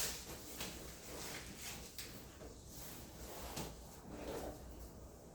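A sharp knock, then a few softer knocks and rustles: a person shifting and turning over to lie face down on a padded chiropractic table.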